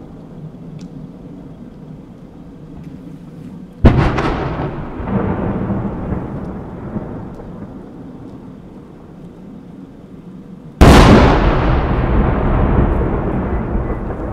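Two aerial firework shells bursting with loud booms, about seven seconds apart, the second the louder. Each boom is followed by a long rolling rumble that fades over several seconds.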